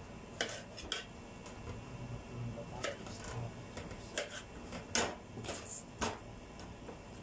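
Kitchen knife cutting potatoes on a cutting board: a handful of irregular sharp knocks as the blade strikes the board.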